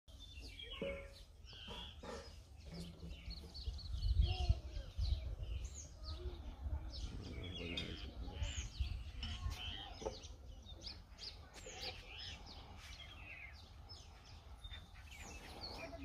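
Many small birds chirping and calling over one another in quick, short notes, over a low rumble that is loudest about four seconds in.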